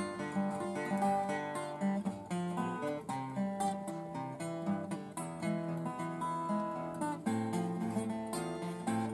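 Acoustic guitar played solo, a tune of picked notes and chords changing every fraction of a second.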